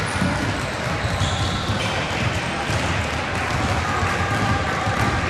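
Many basketballs dribbled at once on a hardwood gym floor: a steady clatter of overlapping bounces with no regular beat.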